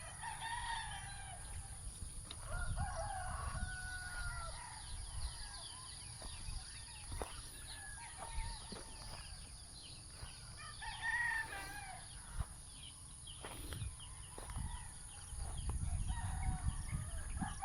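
Roosters crowing: one crow near the start, another about three seconds in and a third about eleven seconds in.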